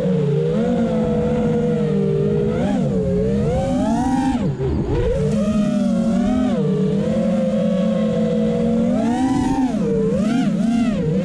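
FPV racing quadcopter's brushless motors and propellers whining in flight, the pitch rising and falling as the throttle changes. About four and a half seconds in the pitch dives sharply and climbs back, and it wobbles quickly up and down near the end.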